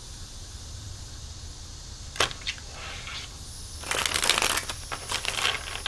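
A deck of tarot cards being shuffled by hand: a few sharp card snaps about two seconds in, then a dense crackling riffle of cards for about a second near the middle, and a few more flicks after it.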